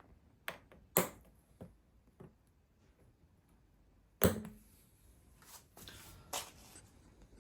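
Pliers clicking and knocking against a nail lodged in a car tyre as they struggle to grip it: a handful of separate sharp metal clicks, the loudest about four seconds in, followed by lighter clatter.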